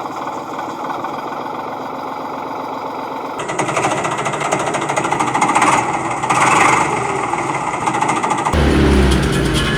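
Rapid mechanical rattling, with abrupt changes in character about three and a half and eight and a half seconds in.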